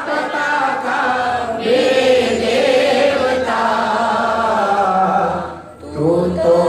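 A man singing a Hindi devotional bhajan, drawing out long held notes, with a brief pause for breath near the end.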